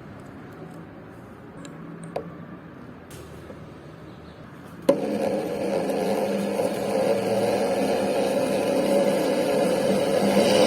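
A few light clicks and taps, then about five seconds in an electric power tool starts with a sudden jolt and runs steadily at a constant pitch, growing louder toward the end.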